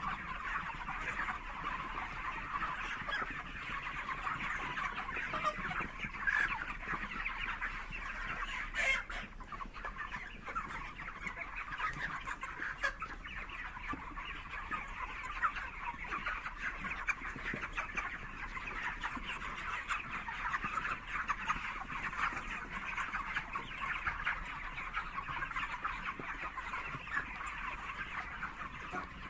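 A large flock of poultry-farm chickens clucking and chattering continuously, many birds calling over one another in a steady dense din.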